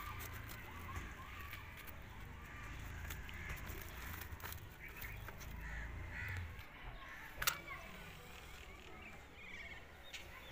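Birds calling in short, scattered calls over a low rumble that fades about six and a half seconds in. A single sharp click sounds about seven and a half seconds in.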